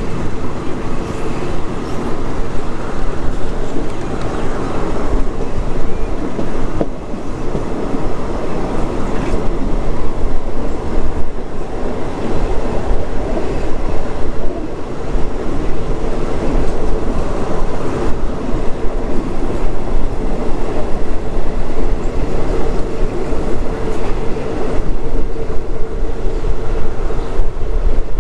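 Passenger train running along the track, heard from inside a third-class coach: a loud, steady rumble of wheels on the rails.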